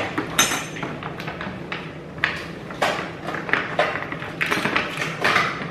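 Plastic instant-food trays and packets being handled: irregular crinkles, rustles and light taps, several a second.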